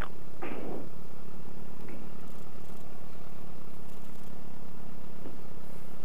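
Sport motorcycle engine running steadily as the bike rides slowly over rough ground, with a steady rumble and noise on the microphone. A brief, louder noise comes about half a second in.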